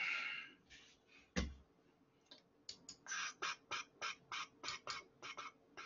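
Computer keyboard being typed on: a steady run of quick, crisp key presses, about four or five a second, starting about two and a half seconds in. Before it come a short rustle and one sharp click with a low knock, the loudest sound.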